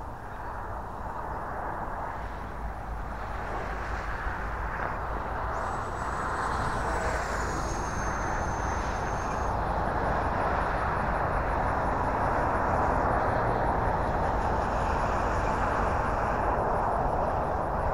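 Electric ducted-fan RC jet (Horizon Hobby Viper 70 mm on a 6S battery) flying past: a thin high fan whine that drops in pitch about seven seconds in, over a rushing noise that grows louder.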